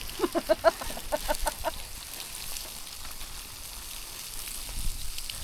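A person laughing in a quick run of short, pitched bursts for the first two seconds or so, then the faint steady hiss and crackle of the campfire coals with fish parcels cooking on them.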